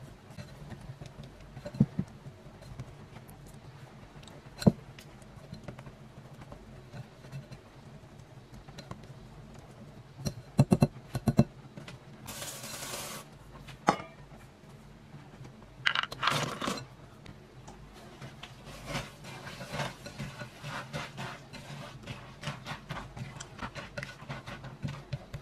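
A wire whisk stirring thick batter in a glass bowl, knocking against the glass now and then. Granola is then tipped into the bowl with a brief rattle, and a silicone spatula stirs and scrapes it through the sticky mixture.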